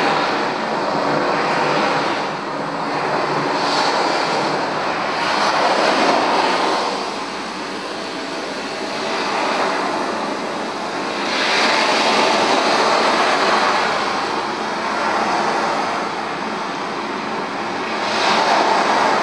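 A loud rushing noise that swells and fades every few seconds, like surf or wind, with no voices or tune in it.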